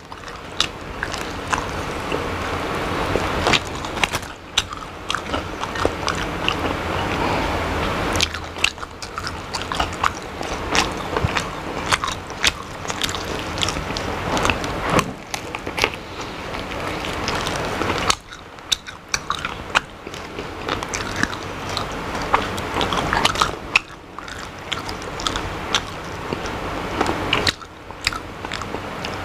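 Close-miked eating: biting and chewing fried, flour-coated chicken feet, with many sharp crunches and clicks, pausing briefly now and then between mouthfuls.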